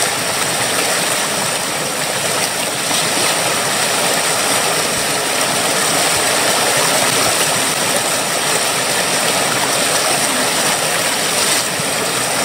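Whitewater rapids rushing steadily over rocks, close by and loud.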